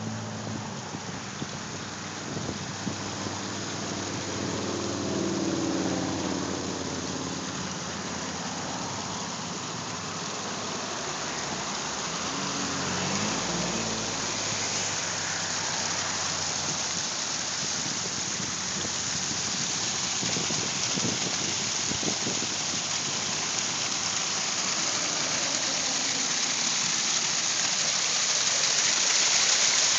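Water rushing and splashing over the rocks of a large pondless waterfall, a steady rush that grows louder toward the end. A low engine hum fades out in the first second or so.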